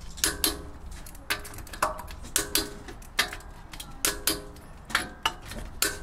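Hand wrench tightening a wheel's lug nuts: about a dozen sharp metallic clicks, mostly in pairs a fraction of a second apart, each ringing briefly.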